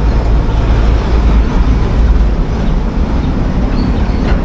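Wind buffeting the action camera's microphone as a loud, steady low rumble that flutters in level.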